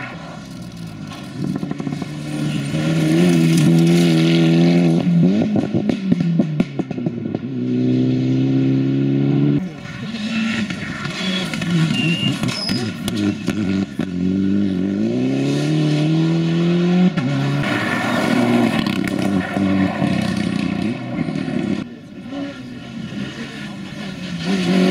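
Rally cars driven hard on a stage, engines revving up through the gears with sudden drops in pitch at each upshift, several times over as the cars pass one after another.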